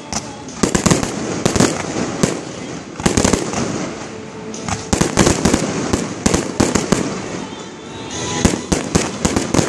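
Aerial fireworks shells bursting: loud, sharp bangs in irregular clusters every second or so, several in quick succession at a time, with a steady haze of crackle between them.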